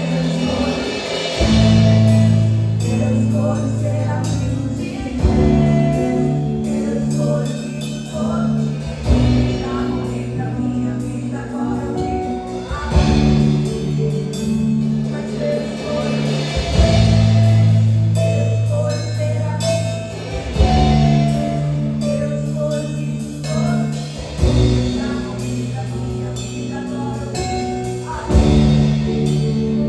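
Gospel worship song: voices singing over a band, with held low chords changing about every four seconds and a steady drum beat.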